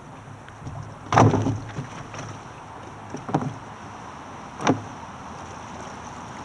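Three hollow knocks on a kayak hull: one loud bump about a second in, then two lighter ones a couple of seconds apart.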